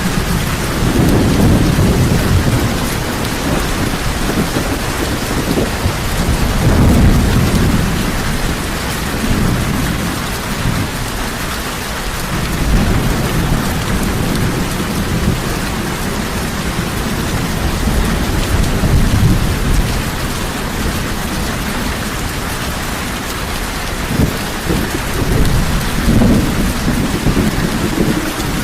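Heavy rain falling steadily, with low thunder rumbling in several slow swells, the strongest near the start, about a quarter of the way in, and near the end.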